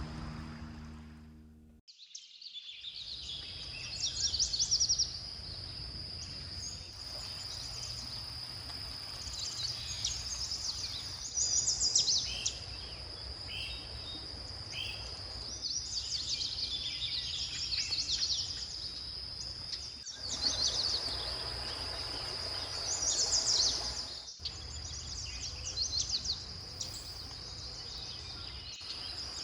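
Birds singing and calling in short chirping bursts every few seconds, over a steady high-pitched insect drone and a low steady rumble.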